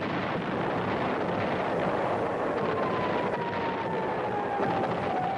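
Steady dense roar of a B-52 bombing run, aircraft noise mixed with rumbling bomb blasts, with a thin whistle that slowly falls in pitch from about halfway through.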